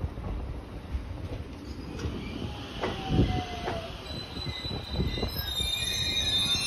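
E257-series electric train rolling along the platform: a low rumble with a few knocks of the wheels over rail joints in the middle, then a high-pitched wheel squeal of several tones at once, building from about four seconds in.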